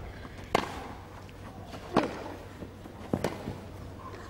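Tennis rally on a grass court: racket strokes on the ball, sharp pops about a second and a half apart, with two knocks in quick succession about three seconds in.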